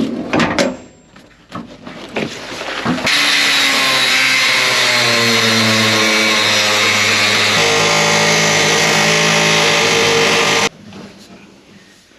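A few knocks, then a pneumatic air hammer with a chisel bit runs steadily for about seven and a half seconds, its pitch shifting slightly partway, and stops suddenly. It is cutting into a seized bushing to free a stuck shaft.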